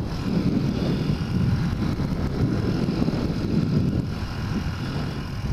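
Suzuki DR-Z125 pit bike's single-cylinder four-stroke engine running steadily under way, mixed with wind rushing over the helmet-mounted microphone.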